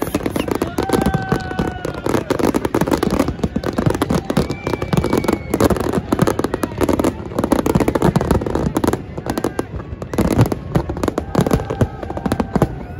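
Large aerial fireworks display: a rapid, continuous barrage of shell bursts and crackling, bang after bang with no pause.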